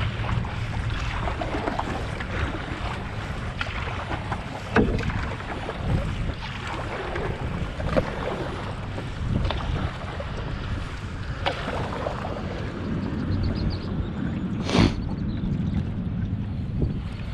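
Wind buffeting the microphone over water splashing and lapping as a canoe is paddled, with a sharp knock or splash about every three seconds, the loudest near the end.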